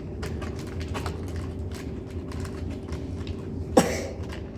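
Small plastic toy pieces clicking and tapping as doll figures are pressed into little plastic chairs, with one louder short sound near the end.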